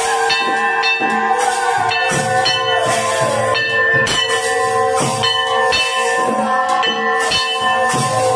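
Arati kirtan accompaniment: a khol clay drum beaten in a steady rhythm of about two strokes a second, with clashing brass hand cymbals and bells ringing continuously over it. A long held note slides lower over the first few seconds.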